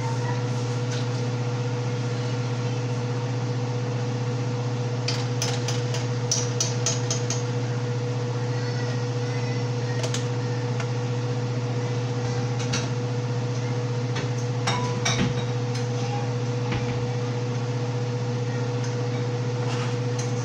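A kitchen appliance motor running with a steady low hum, with scattered clinks and knocks of utensils against pots and dishes, several together about five to seven seconds in and again near the middle.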